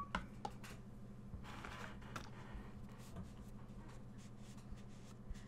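Quiet room tone with a steady low hum, broken by a few light clicks and a brief soft scratching or rustling about one and a half seconds in: makeup products and brush being handled.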